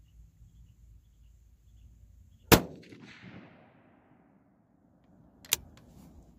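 A single shot from a Bergara B-14 HMR rifle in 6.5 Creedmoor firing a 130-grain Berger VLD Hunting handload over 42.9 grains of Reloder 16: one loud crack about two and a half seconds in, the report dying away over about a second. A short sharp click comes about three seconds after the shot.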